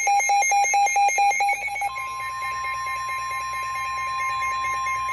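Weather radio alert: rapid beeping, about six beeps a second, gives way about two seconds in to one long steady tone, the NOAA Weather Radio 1050 Hz warning alarm that signals an urgent warning is about to be broadcast.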